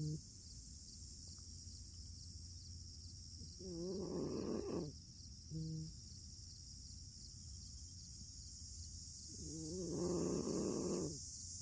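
A sleeping fox snoring: two long, rough snores about six seconds apart, with a short steady note in between them.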